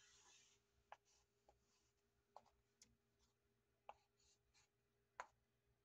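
Faint chalk-on-floor drawing: a short scratchy scrape, then about seven sharp, isolated taps and scratches of the chalk against the hard surface over the next five seconds.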